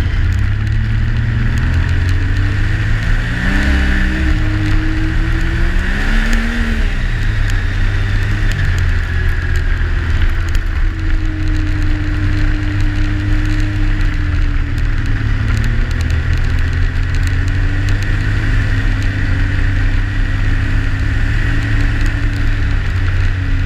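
Yamaha Sidewinder snowmobile's turbocharged three-cylinder four-stroke engine running at trail speed, heard from aboard the sled. The engine note rises and falls twice in the first several seconds as the throttle is worked, then holds fairly steady, with a constant high whine above it.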